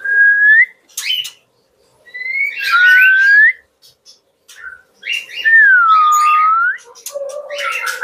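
White-rumped shama singing: three long, clear whistled notes that sweep upward, the last one dipping and then rising again, with short chirps and clicks between them and a busier twittering phrase near the end.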